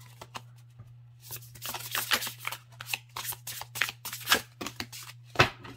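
A deck of tarot cards being shuffled by hand: a rapid run of papery clicks and rustles, ending with a sharper tap of the cards near the end.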